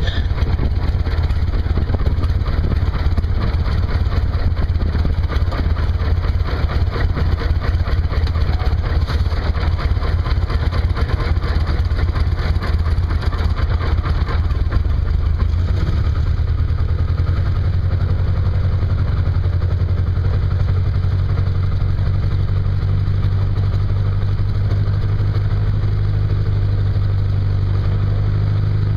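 The Aeronca Champ's 90 hp Continental four-cylinder engine running at low power on the ground, heard from inside the cabin with the propeller turning. It sounds rougher at first and settles into a steady, even idle about halfway through.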